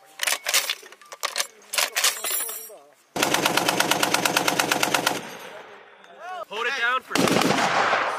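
M2 .50-calibre heavy machine gun fire: a few sharp single reports, then a sustained burst of about two seconds of rapid, evenly spaced shots. A shorter burst follows near the end.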